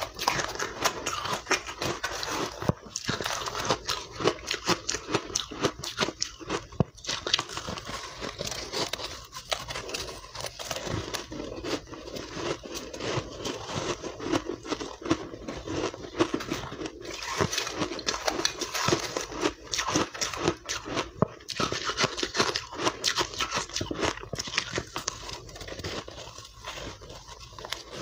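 Close-miked crunching and chewing of refrozen soft ice dusted with matcha powder: a dense, irregular crackle of ice breaking between the teeth.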